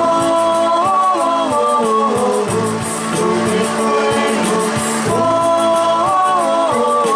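A Spanish-language song: a singer holds long notes over guitar and a steady drum beat, with the melody stepping up in pitch about a second in and again near the end.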